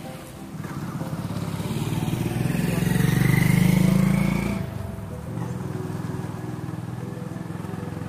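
A motorcycle passing close by. Its engine grows louder over a few seconds, is loudest about three and a half seconds in, then drops off sharply after about four and a half seconds.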